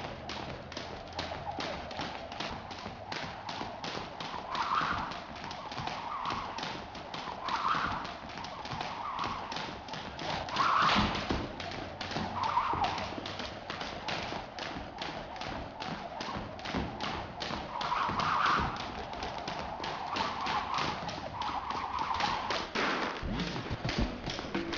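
Jump ropes slapping a wooden gym floor in fast, steady skipping, with feet landing in time: an even rhythm of about three taps a second.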